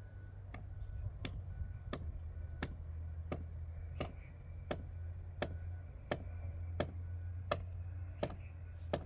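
Sharp knocks repeating at an even pace, about one every three quarters of a second, over a steady low hum.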